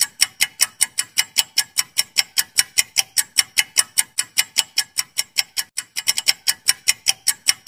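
Clock-ticking sound effect for a quiz countdown timer: fast, even ticks, about five a second.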